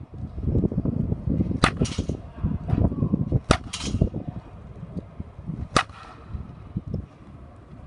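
Baseball bat hitting pitched balls in batting practice: sharp cracks about two seconds apart, the first two each followed closely by a second crack. A low, uneven rumble runs under the first half.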